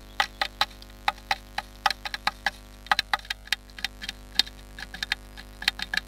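Blue tit pecking at the wooden inside of its nest box, chipping off splinters: sharp, irregular taps, a few a second.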